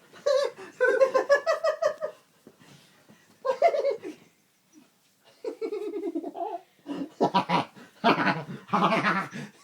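A man laughing while being tickled: an odd, high-pitched laugh in rapid pulses, about eight a second, coming in several bouts with short pauses between them.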